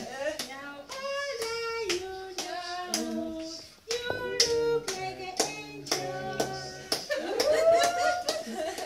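A group of people singing a song together while clapping along in a steady rhythm, about two to three claps a second.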